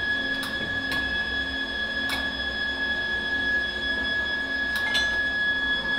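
CNC lathe machinery running with a steady high-pitched whine over a faint pulsing hum, with a few sharp metallic clicks as the steel part is handled at the chuck.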